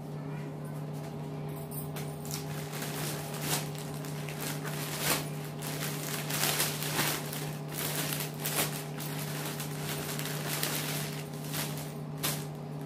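Plastic shopping bag and clear plastic saree wrappers rustling and crinkling in irregular bursts as sarees are unpacked by hand, over a steady low hum.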